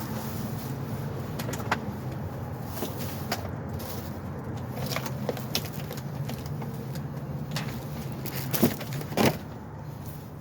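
Scattered knocks and clicks of things being moved about while a dumpster is rummaged through, the loudest two close together near the end, over a steady low hum.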